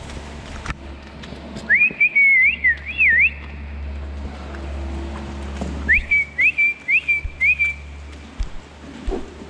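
A person whistling loud, close, short notes that slide up and then hold, in two runs, the second about six seconds in: herding whistles to keep dairy cows moving along the barn alley.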